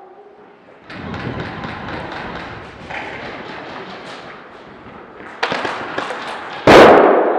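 Irregular thumps and knocks of a player moving off at the start of an airsoft round, with gear jostling against the microphone. The knocks grow sharper and closer together later on, ending in one loud thump near the end.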